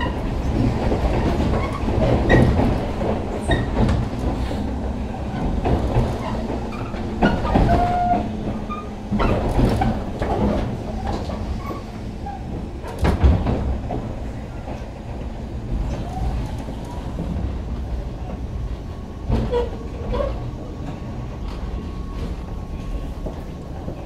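JR West 105 series electric train heard from inside its motor car while running, with steady rumble from wheels and motors and scattered clicks from the track. The noise eases off gradually, as the train slows for the next station.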